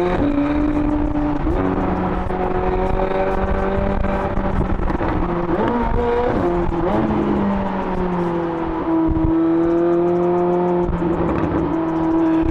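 McLaren 765LT Spider's twin-turbo V8, fitted with IPE downpipes, running under way. Its pitch steps with gear changes about a second and a half in and again around six to seven seconds, then climbs slowly, with light exhaust crackles in the second half.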